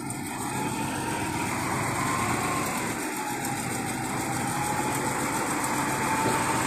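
Truck engine running steadily, with a thin whine that drifts slightly in pitch; it starts abruptly.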